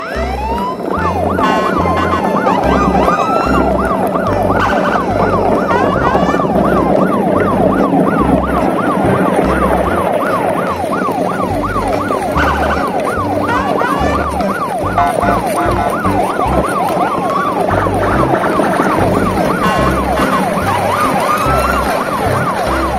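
Electronic siren sounds, many overlapping fast rising-and-falling wails, over a regular low beat.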